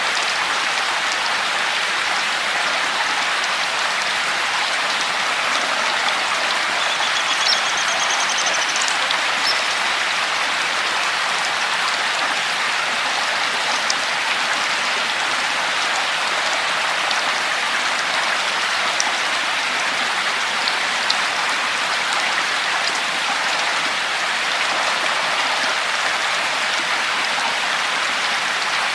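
Steady rain falling, a continuous hiss with scattered drop ticks. A bird gives a brief high call about seven to eight seconds in.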